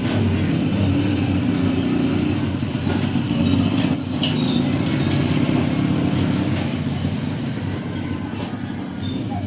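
Steady low rumble of motor traffic, with a brief high tone about four seconds in.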